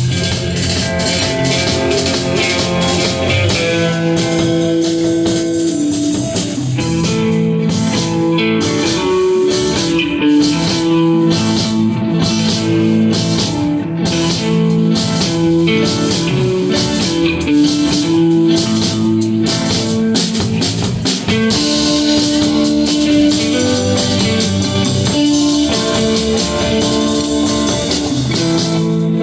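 Band playing a rock instrumental: a guitar carries the melody in held notes over a drum kit.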